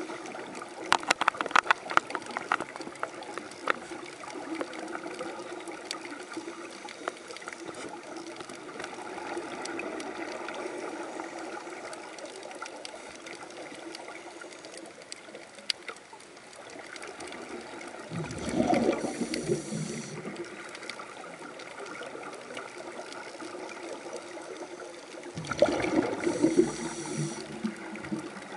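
Underwater scuba-diving ambience: a steady hiss with scattered clicks in the first few seconds, then two bursts of regulator exhaust bubbles gurgling as a diver breathes out, about two-thirds of the way through and again near the end.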